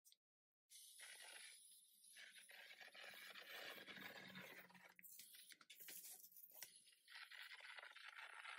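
Redline EZ50 electrostatic powder coat gun spraying: a faint, steady hiss of air and powder, broken briefly a few times as the trigger is eased.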